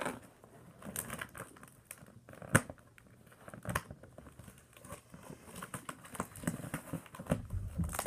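A box of candlepin bowling balls being handled and pried at in an attempt to open it. Its packaging crackles and clicks irregularly, with a sharper knock about two and a half seconds in, and the box does not come open.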